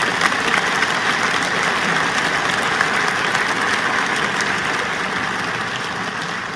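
Large audience applauding in a hall, a dense steady clatter of clapping that slowly tapers off near the end.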